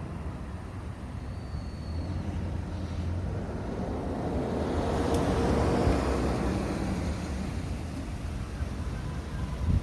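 Road traffic at a crossroads: a car passing, swelling to its loudest about five to six seconds in and then fading, over a steady low rumble.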